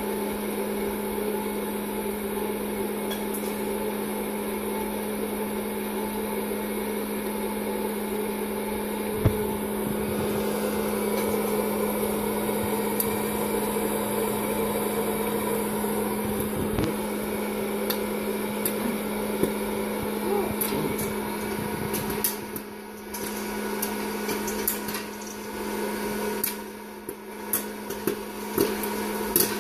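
Hot-air popcorn popper running: its fan motor gives a steady hum and blowing noise. From about two-thirds of the way in, the popcorn starts to pop, sharp clicks that come faster and faster toward the end.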